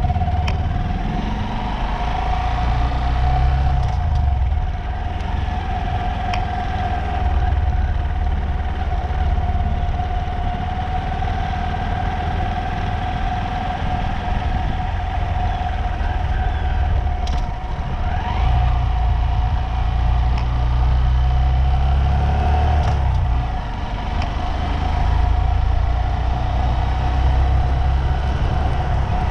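Vehicle travelling on the road: a steady high whine holds the same pitch throughout, over a low rumble that rises and falls.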